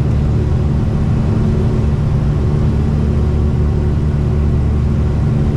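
Cabin noise of a Tecnam P2006T light twin in flight on approach: the steady drone of its two Rotax 912 piston engines and propellers, heard from inside the cockpit as a low hum of several tones under a rushing noise.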